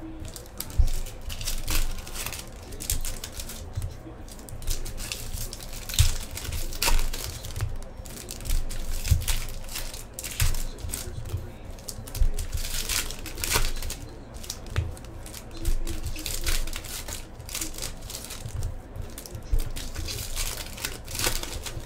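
Foil trading-card pack wrappers crinkling and tearing as packs are ripped open by hand, in a long run of irregular crackles.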